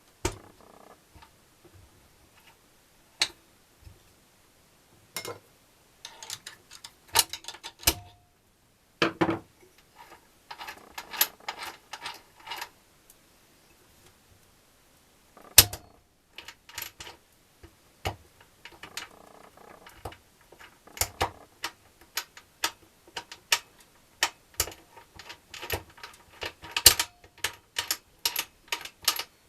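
Irregular clicks, taps and metallic knocks of tools and engine parts being handled during engine assembly, a few hits ringing briefly. They come more thickly in the second half.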